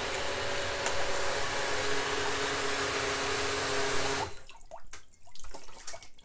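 Countertop blender running steadily as it churns chopped pineapple, banana and ginger in water, then switched off abruptly about four seconds in. A few light clicks and knocks follow.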